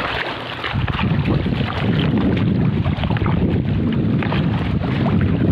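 Wind buffeting the microphone over choppy seawater lapping around pier pilings; the low rumble grows louder about a second in.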